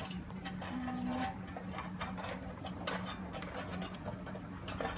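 Scattered light clicks and scrapes of a door lock's front panel and its cable being handled and fitted against a door, over a steady low hum.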